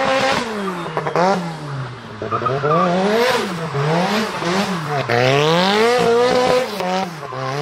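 Mazda RX-7 FD drift car's engine revving hard up and down in quick blips, about once a second, as it drifts, with tyres squealing under it.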